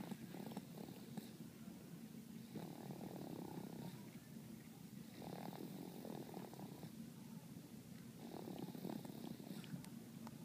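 A sleeping pet snoring: a soft, continuous low rumble that swells louder with each breath, about every two and a half to three seconds.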